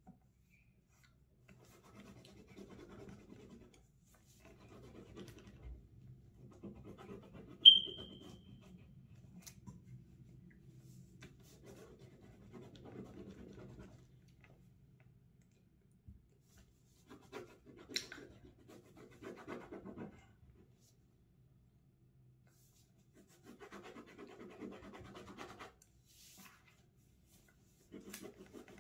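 A drawing tool scratching on paper in bursts of quick back-and-forth strokes as a shape is coloured in, with pauses between. One short, sharp high ping comes about eight seconds in, the loudest sound here, and a faint low hum lies underneath for the first half.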